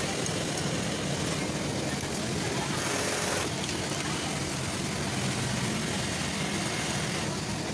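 Industrial double-needle split-bar sewing machine stitching fabric, heard through the steady machine din of a garment factory floor.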